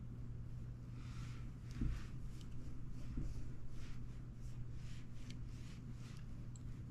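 Soft rustling and scraping of a plastic coil spring being stretched and dragged across a wooden tabletop, with a few light ticks and a small knock about two seconds in, over a steady low hum.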